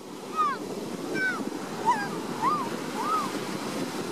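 Ocean surf breaking and washing over rocks on a beach, a steady rushing. Five short whistled calls, each a quick falling or arched glide, sound over it in the first three seconds.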